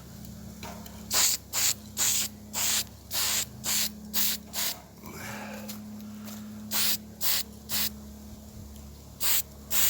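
Short bursts of spray paint hissing, about two a second in runs with a pause between them, as a light first coat of red oxide primer is sprayed onto a lawn mower engine cowling. A steady low hum runs underneath.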